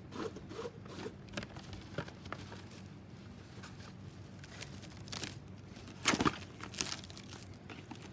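Plastic wrap being pulled from its box, crinkling and crackling, with a few louder rasps about five to seven seconds in as the film is torn off against the box's cutting edge.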